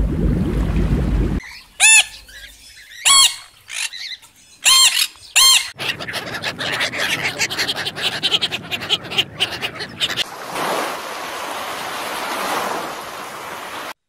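White domestic ducks quacking, four short nasal quacks spaced about a second apart, then a run of quick clicks and splashing in shallow water. It opens with a low rushing water sound that cuts off about a second and a half in.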